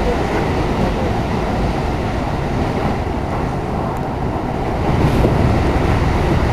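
Running noise of a JR East E233 series electric train heard from inside the car at speed: a steady rumble of wheels on rail. It gets louder about five seconds in as the train passes back into a tunnel.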